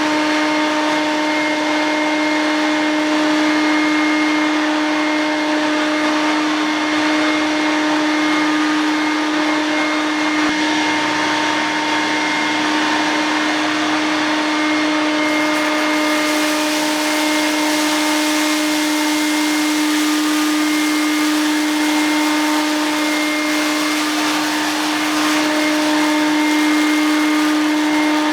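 Fortune Dragon cordless vacuum cleaner running steadily, its motor giving a constant whine over a rushing hiss. The hiss grows brighter about halfway through.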